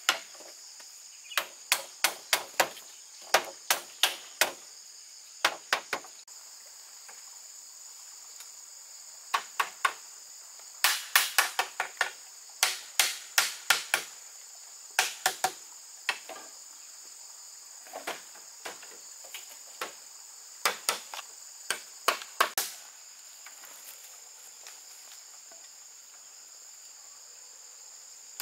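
Sharp tool strikes on bamboo, coming irregularly in quick clusters with short pauses, as in hammering or chopping during building. A steady high insect drone runs underneath.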